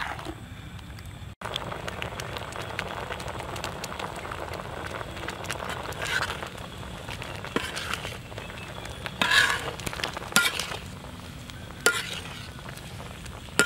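Banana pieces bubbling and sizzling in boiling sugar syrup in a metal pan, a steady frothy hiss. A few sharp clinks and scrapes of a metal spoon on the pan.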